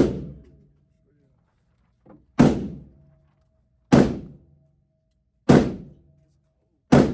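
Gunshots at an indoor shooting range: five single shots at a steady pace, about a second and a half apart, each with a short reverberant decay.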